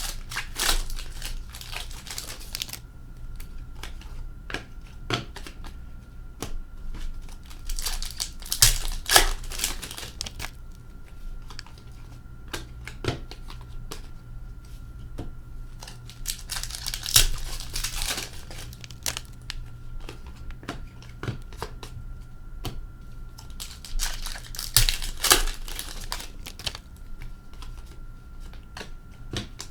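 Hockey card pack wrappers being torn open and crinkled, in bursts several seconds apart, with scattered light ticks between them.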